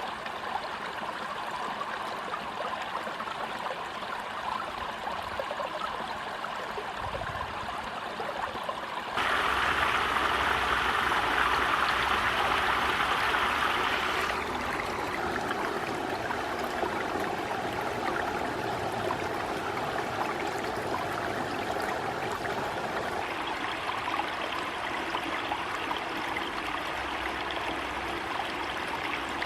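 Mountain stream flowing: a steady rush of running water. It gets abruptly louder and brighter about nine seconds in and drops back about five seconds later, as if cut between different spots along the stream.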